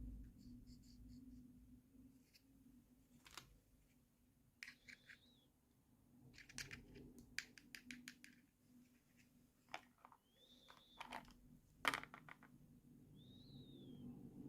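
Faint, scattered clicks, taps and short scrapes of small objects being handled, some in quick clusters of several clicks, over a low steady hum. Typical of plastic toy pieces and packaging being unboxed.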